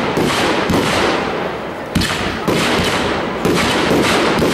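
Aerial fireworks bursting in quick succession: a series of sharp bangs roughly every half second to a second, with crackling between them.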